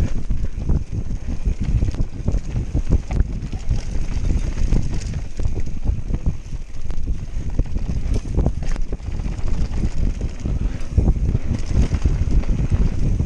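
Canyon Spectral full-suspension mountain bike descending a dirt trail at speed. Heavy wind buffeting the microphone and the rumble of tyres on dirt, with frequent irregular knocks and rattles from the bike over bumps.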